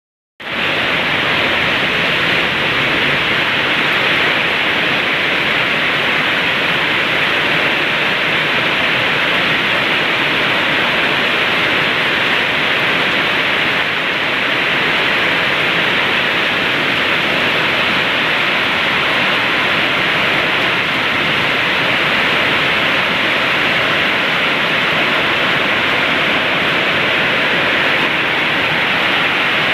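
Heavy tropical downpour: rain falling hard and steadily, a dense, even hiss.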